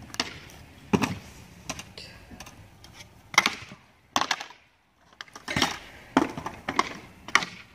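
Stunt scooter decks and wheels clacking against concrete ramps: about ten sharp, irregularly spaced impacts with a rolling hiss between them.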